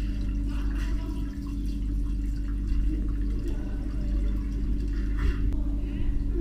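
Pool water heard from under the surface: a steady low rumble and hum, muffled, with faint splashing and bubbling from dogs paddling at the surface.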